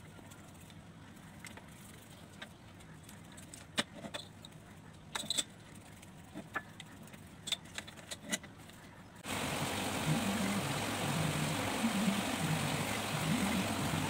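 Scattered small clicks and light rattles as a circuit board is handled and moved about by hand. About nine seconds in, a steady hiss with wavering low tones abruptly takes over.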